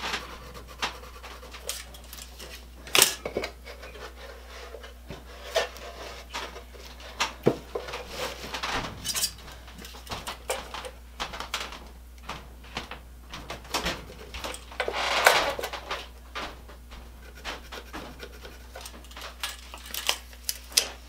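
Scattered handling sounds of measuring and marking wood with a tape measure and pencil: irregular clicks, taps and rubs, with a sharp knock about three seconds in and a longer scraping noise of about a second near the middle, over a low steady hum.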